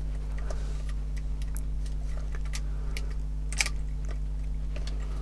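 Light clicks and taps of an electric motor and plastic chassis parts being handled as the motor is fitted against an RC car's gearbox, with one sharper click a little past halfway, over a steady low hum.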